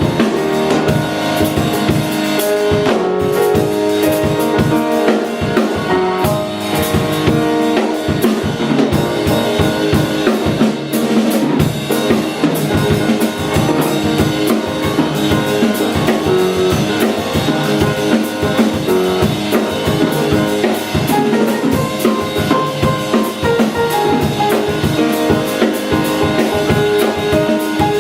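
Instrumental Christmas music played by a live band, a drum kit keeping a busy beat under sustained pitched notes and chords.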